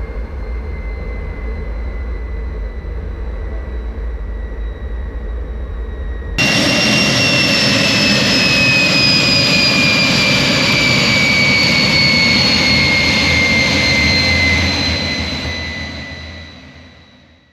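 MiG-17's turbojet engine running with a steady whine over a low rumble. About six seconds in it jumps to much louder jet noise, its whine slowly falling in pitch, then fades out near the end.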